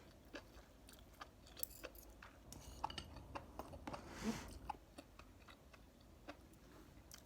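Faint close-up mouth sounds of someone chewing a mouthful of buldak carbonara noodles: soft, irregular wet clicks, with a short, slightly louder rush of noise about four seconds in.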